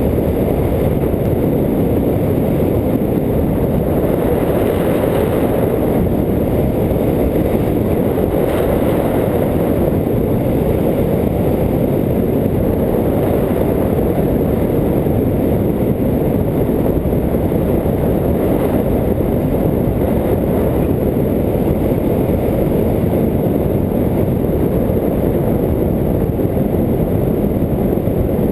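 Steady, loud wind rushing over the microphone of a camera on a hang glider in flight, a deep even rumble with no change in level.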